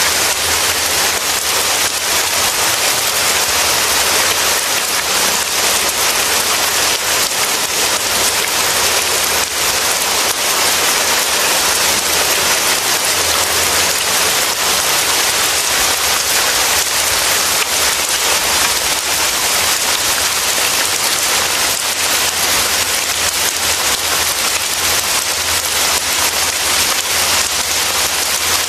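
Rain falling steadily, an even unbroken hiss of drops with no thunder or other events.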